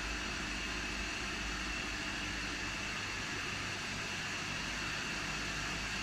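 Water-cooled tube ice machine running in its first freezing cycle, its 15 HP Refcomp SP4L-180E piston compressor driving an R404a system: a steady mechanical hum under an even hiss, with a faint high whine.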